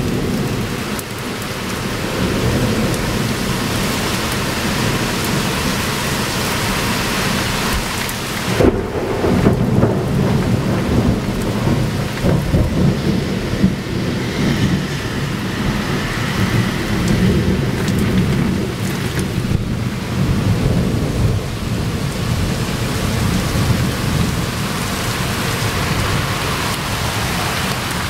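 Heavy rain falling steadily in a summer thunderstorm. About a third of the way in, thunder breaks in with a sharp crack and then rolls and rumbles for over ten seconds before easing back to the rain.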